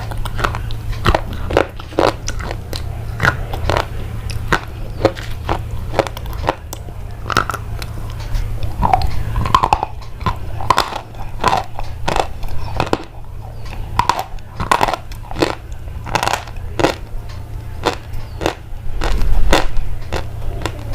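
Dense, irregular crisp crunches and clicks, like something brittle being bitten or crushed, over a steady low hum, with a louder low rumble near the end.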